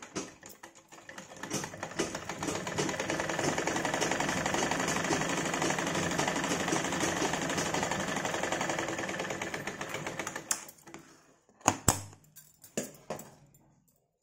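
Straight-stitch sewing machine stitching a seam, its fast even rattle building up over the first couple of seconds, running steadily, then slowing to a stop about ten seconds in. A few sharp clicks and knocks follow near the end.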